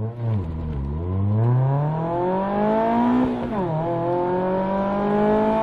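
Mazda ND2 Miata four-cylinder engine and exhaust accelerating: the note climbs steadily, drops sharply at an upshift about three seconds in, then climbs again more slowly in the next gear.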